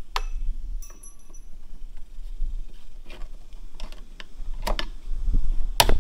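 Small metallic clicks and taps as a flat-blade screwdriver works the retaining clip on the ball-socket end of a Jeep Commander rear hatch gas strut, with a short metallic ring about a second in and a louder click near the end.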